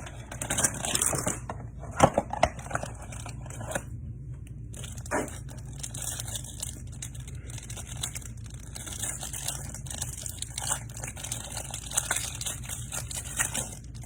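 Trading-card hanger box being opened and its cards handled: tearing and crinkling of the packaging with irregular small clicks and scrapes, the loudest a sharp click about two seconds in.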